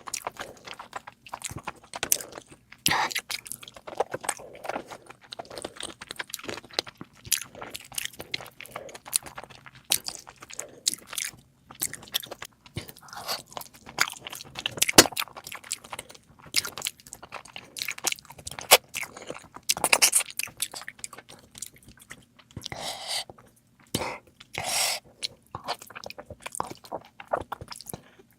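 Close-miked eating: a person chewing and biting into food, with irregular crunches and mouth sounds.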